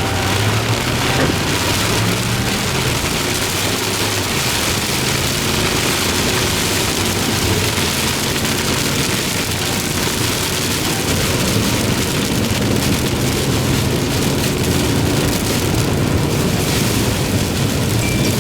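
Steady rain falling on a vehicle, with the low hum of its engine and road noise underneath.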